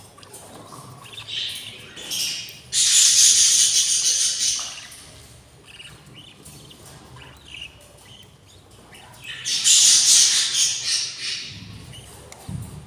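Budgerigar chicks giving harsh, raspy begging calls, in two long loud bouts about three seconds in and around ten seconds, with softer chirps between. A brief low bump near the end.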